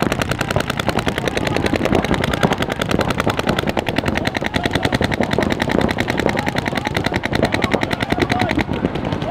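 Paintball markers firing rapidly and without a break: a steady, dense rattle of shots.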